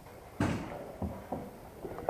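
A sharp knock about half a second in, then three lighter short knocks or taps, in a small hard-walled room.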